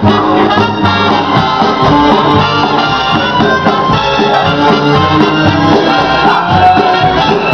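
Loud, upbeat show-tune music playing over a stage sound system for a dance routine, mostly instrumental.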